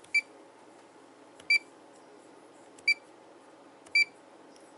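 Fluke 287 multimeter giving short key-press beeps as its soft keys are pressed: four brief high beeps, a little over a second apart.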